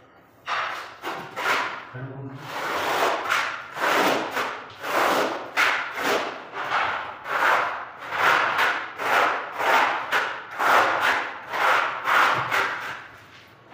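A trowel scraping tile adhesive across the back of a porcelain floor tile, in repeated rasping strokes at about two a second.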